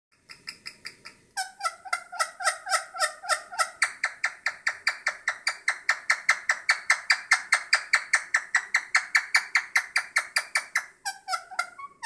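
A female Indian ringneck parakeet clucking in a rapid, even run of about five clucks a second, aimed affectionately at her own reflection in a mirror. The clucks grow louder after the first second or so and break off briefly near the end.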